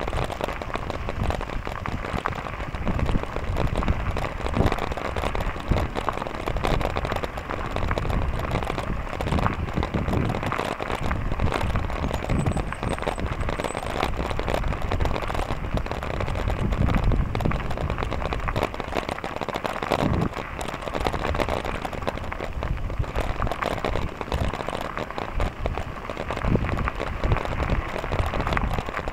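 Bicycle tyres rolling over a gravel trail: a steady crunching crackle, with wind rumbling on the microphone. A faint high chirping is heard briefly about halfway through.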